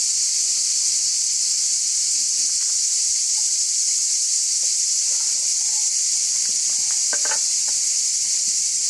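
Steady, high-pitched chorus of summer insects buzzing without a break, with a few light knocks about seven seconds in.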